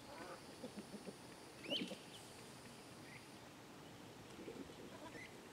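A few faint short bird calls, with one louder call about two seconds in, over a faint steady high-pitched tone that stops a little past halfway.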